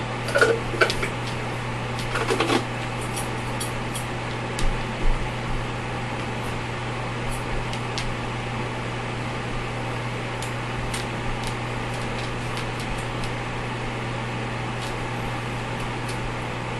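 DeLonghi DCM900 coffee maker's built-in grinder running with a steady motor hum, with scattered clicks and knocks, most of them in the first few seconds.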